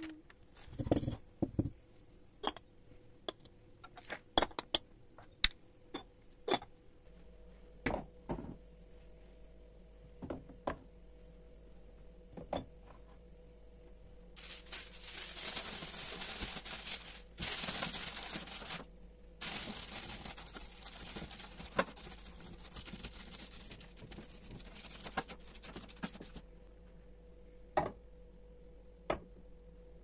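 Aluminium foil crinkling and rustling as it is torn and pressed around a gas pipe, lasting about ten seconds from roughly halfway through. Before it, scattered sharp clicks and knocks of glass jars and cupboard items being handled.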